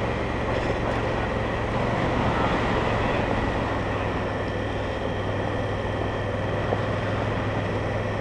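Honda Africa Twin CRF1000L's parallel-twin engine running steadily while the bike rides along a dirt forest track, with a rush of wind and tyre noise.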